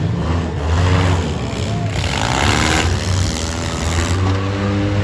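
Engines of four-cylinder demolition derby cars revving and running, several at once, their pitches rising and falling against each other.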